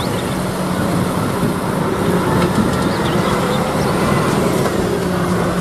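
Concrete mixer truck running steadily, a loud rumble with a low hum.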